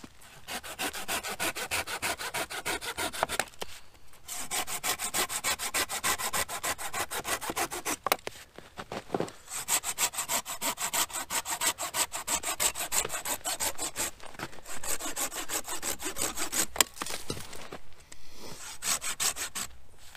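Hand pruning saw cutting through a wooden branch in fast, rhythmic back-and-forth strokes. There are short pauses about 4 s and 9 s in and again near the end.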